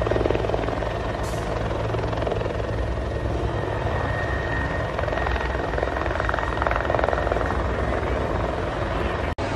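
Helicopter in flight: a steady, loud rotor and engine drone with a fast blade chop. It drops out for an instant near the end.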